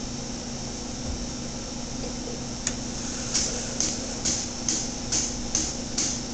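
Ketchup dispenser's pump cycling as the button is held, pushing sanitizer solution through the lines: a click about two and a half seconds in, then short hissy pulses about twice a second. A steady hum sounds throughout.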